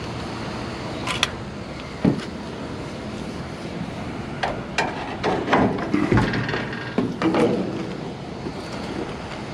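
Objects being handled and rummaged through: scattered knocks and clicks, busiest in the middle, over a steady background rumble.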